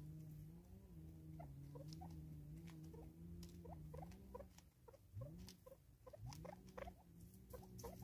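Faint low hum, wavering slightly in pitch, that breaks off about halfway and starts up again twice with a quick rise in pitch. Over it are scattered soft clicks and short chirping notes from Natal spurfowl pecking at a plastic bottle feeder.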